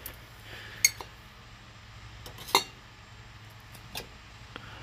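Vases being handled on a store shelf, clinking against each other: a few sharp, separate clinks spread over a few seconds, the loudest two under a second and about two and a half seconds in.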